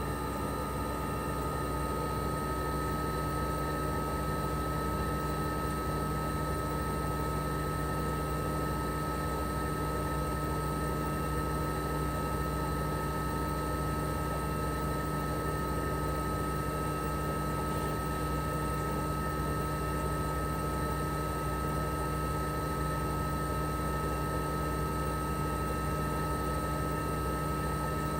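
Toshiba RAS-285BAD air conditioner outdoor unit running steadily in cooling mode: its twin rotary compressor humming under the propeller fan's whoosh, with a steady high whine that steps up slightly in pitch at the start.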